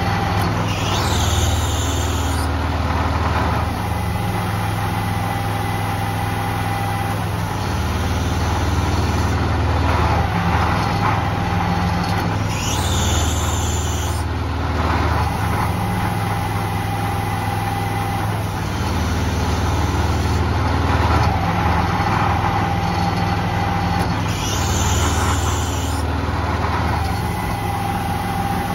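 An engine runs steadily under load behind a hydraulically actuated asphalt spray bar. Three times, about a second, 13 seconds and 25 seconds in, a short hiss sounds as the bar is switched on or off by remote.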